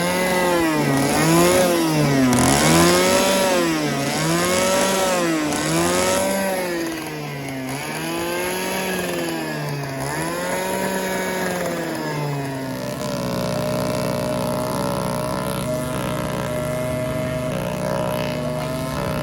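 Small gasoline string-trimmer engine driving a homemade RC boat at speed. Its pitch swells up and down about every second and a half, then holds steady for the last third.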